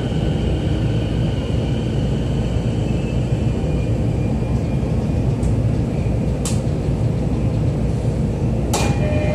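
Running sound inside a Toei 10-300 series subway car in a tunnel: a steady low rumble of wheels on rail and the motors. A few sharp clicks come through, the strongest near the end.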